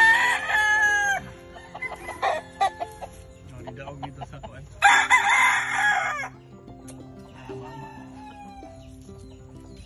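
Rooster crowing twice: one crow at the start and another about five seconds in, each lasting over a second, with shorter, quieter calls between.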